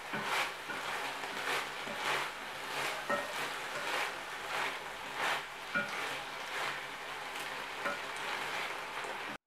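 Diced chicken sizzling in an enamelled frying pan while a wooden spatula stirs it, scraping and clacking against the pan over and over, about once or twice a second. The sound cuts off abruptly near the end.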